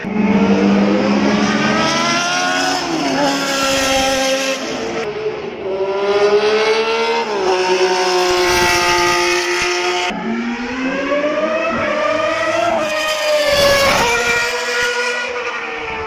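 Vintage Formula 1 single-seater engines revving high and accelerating past on the track. Their pitch climbs and drops sharply several times as they shift up through the gears, about three seconds, seven and a half seconds, ten seconds and fourteen seconds in.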